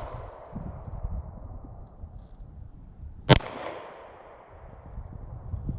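A single 9mm pistol shot a little over three seconds in, followed by its fading echo. The echo of the previous shot is still dying away at the start.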